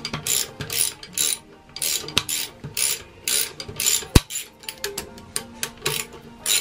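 A socket ratchet wrench clicking in quick strokes as bolts are backed out, the bolts coming loose easily. There is one sharper, louder click about four seconds in.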